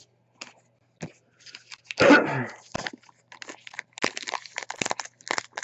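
Baseball trading cards and a pack wrapper being handled and torn open: a run of short crinkling, crackling and tearing sounds that grows denser in the second half.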